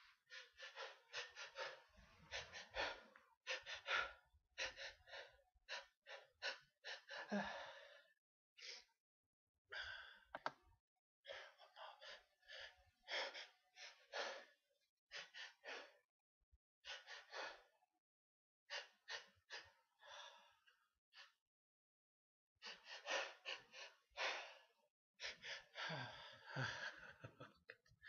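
A person's sharp, breathy gasps, repeated in clusters with short pauses between them: hitching, the catching breaths that build up towards a sneeze.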